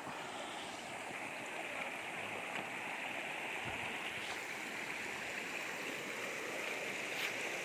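Shallow river rushing over rocks in small rapids: a steady, even wash of flowing water.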